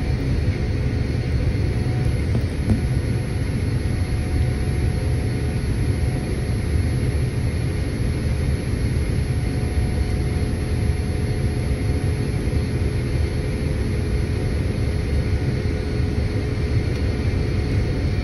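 Boeing 787-9 jet engines and airflow heard from inside the passenger cabin: a steady low rumble with faint constant whines above it.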